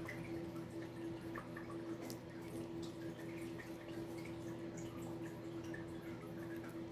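Four-week-old Pomeranian puppy licking soft food off a spoon: small wet smacking and lapping sounds scattered through, over a steady low hum.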